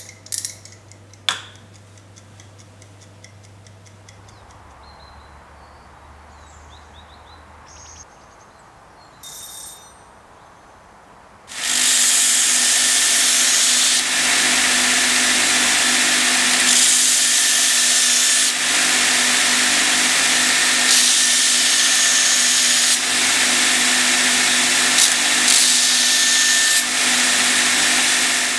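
A wind-up kitchen timer is turned with fine ticking clicks, and there is a brief ring about nine seconds in. From about twelve seconds a belt grinder runs steadily with a motor hum while the steel blade of a hand-forged herb chopper is ground against the belt, and this is the loudest sound.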